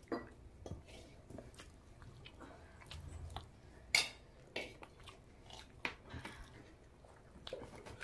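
Close-miked chewing and wet mouth smacks of a person eating curry-soaked rice by hand, a string of short irregular clicks and smacks, the loudest about four seconds in as a handful goes into the mouth.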